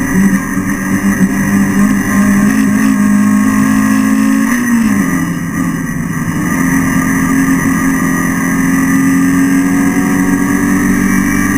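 Renault Clio Sport race car's four-cylinder engine under racing load, heard from inside the cabin. Its pitch climbs slowly, drops a little under halfway through as the revs fall, then holds high again.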